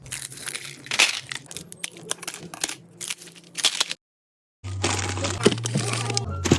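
Rapid clicks, crackles and light knocks of packaged food and containers being handled and set down while restocking a fridge. About four seconds in the sound cuts out completely for a moment, then comes back with a steady low hum under more clicks and knocks.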